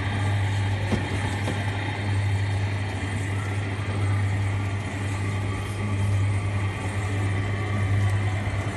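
Coin-operated kiddie ride car's electric motor running with a steady low hum, swelling and easing about every two seconds as the ride rocks.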